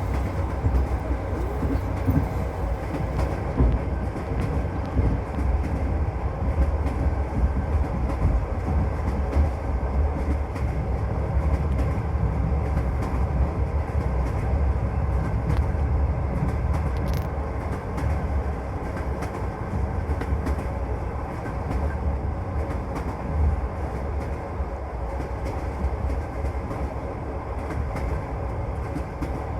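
Train wheels running on the rails, heard from inside a moving passenger carriage: a steady low rumble with irregular clicks and knocks from the wheels and rail joints.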